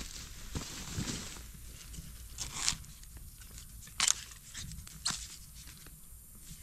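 Rak bamboo (Thyrsostachys siamensis) shoots being cut and worked free at the base of a bamboo clump. A few sharp cracks, the loudest about four seconds in, come amid crunching and rustling of dry bamboo leaves and husks.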